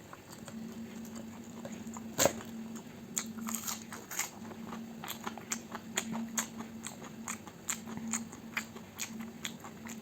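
Close-miked eating of crunchy food: a loud crisp bite about two seconds in, then steady chewing full of sharp crunches and crackles.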